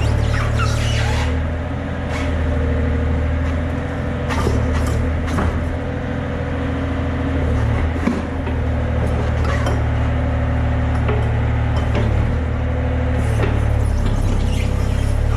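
Compact excavator's diesel engine running steadily, with scattered metallic clicks and clanks over it.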